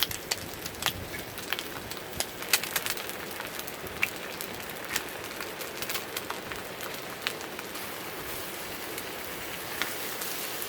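Fire crackling, with irregular sharp pops over a steady hiss.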